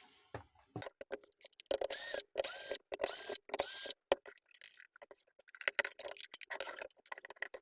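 Small electric screwdriver running in four short bursts about two seconds in, its motor whine rising and then holding each time as it backs out the floodlight's housing screws. Scattered clicks and taps of screws and metal parts come around the bursts.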